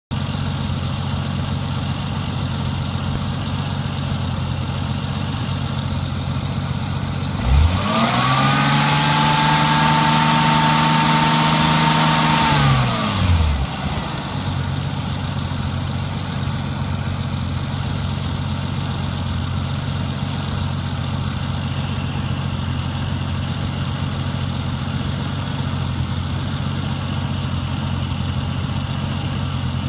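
Renix Jeep Cherokee engine idling steadily while air is burped out of its cooling system. It is revved once, about a quarter of the way in, and held up for about five seconds, with a whine and a rushing noise coming in alongside, before it drops back to idle.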